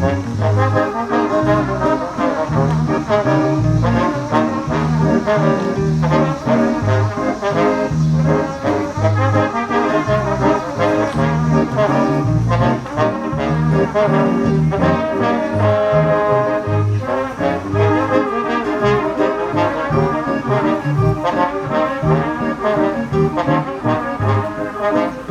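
Brass-led music, trombone and trumpet to the fore, over a steady bass beat.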